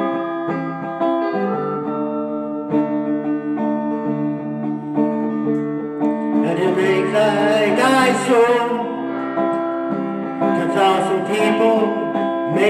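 Guitar music: steady chords, with a wavering melody line coming in about halfway and again near the end.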